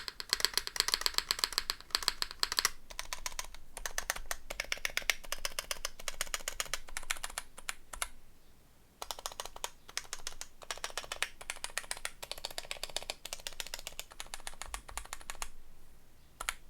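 Fast typing on a KBDfans D60 WKL gasket-mounted mechanical keyboard with an FR4 plate, TTC Bluish White switches and EPBT PBT keycaps: rapid runs of keystroke clicks, pausing briefly three times.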